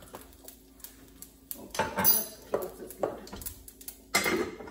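A metal spoon clinking and scraping against a stainless steel mixing bowl as batter is stirred, in a string of separate clinks with one loud ringing clank about halfway through. Near the end, a pan lid clatters onto a frying pan.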